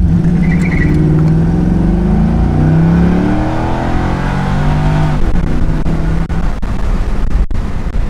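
2000 Corvette C5's LS1 V8 at full throttle, its note rising in pitch as the car accelerates hard. About five seconds in the engine note drops away at the shift into second, leaving road and wind noise. It is a healthy pull with no knock, a sign the misfire is cured.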